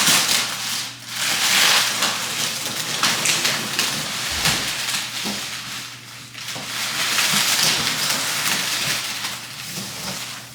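Loud, continuous rustling and crinkling that swells and eases unevenly, with small clicks through it.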